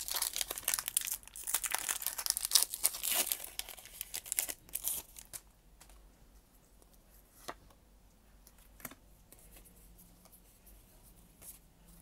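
Foil wrapper of a Pokémon Shining Fates booster pack crinkling and tearing open under the fingers for about five seconds, then only a few faint ticks as the cards are handled.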